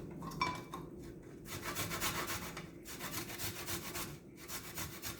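Fresh ginger being grated by hand on a grater, a run of repeated rasping strokes.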